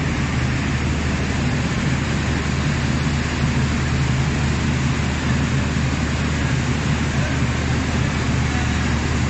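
Steam-hauled train running: a steady low rumble under a continuous rushing hiss, with no breaks or distinct beats.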